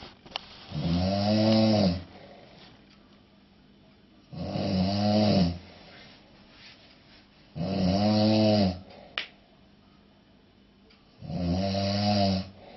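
A man snoring heavily in his sleep: four long snores, each about a second long and rising then falling in pitch, about three and a half seconds apart, with quiet breathing between. A short sharp click comes just after the third snore.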